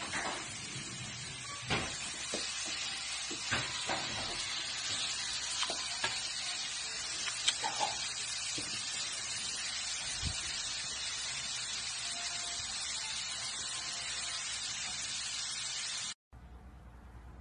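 Steady hiss with scattered soft taps and clicks in the first half. Near the end it cuts off and gives way to a quieter low hum.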